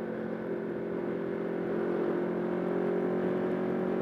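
Kawasaki Ninja 650R parallel-twin engine running at road speed in the rain, with a steady hiss of wind and wet-road spray. Engine and hiss grow slowly louder as the bike picks up speed.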